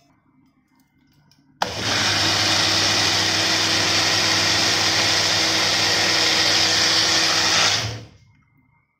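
Wonderchef Nutri-blend personal blender motor switching on abruptly and running steadily for about six seconds, blending a thick mango milkshake of mango, milk, sugar and ice, then winding down and stopping as the cup is released.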